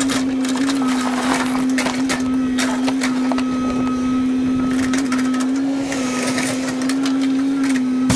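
Excavator engine and hydraulics running at a steady pitch, with irregular knocks and clatter throughout.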